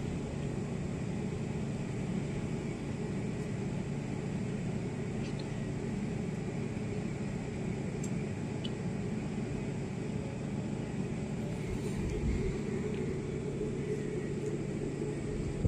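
Steady low rumble of street traffic with a constant low hum, and a few faint ticks.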